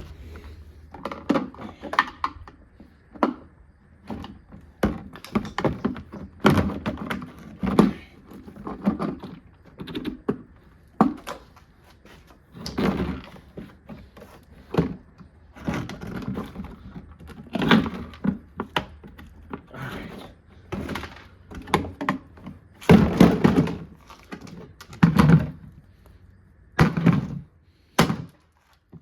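Kuppet portable washing machine being smashed apart: a long irregular run of thuds, knocks and cracks, the heaviest blows near the end.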